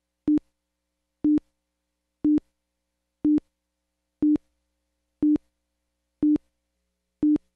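Countdown beeps on a broadcast tape leader: a short, low-pitched beep once a second, eight times.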